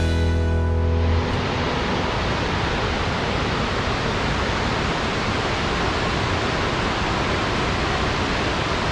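Steady, even rushing of a waterfall. The last chord of a guitar music track fades out about a second in.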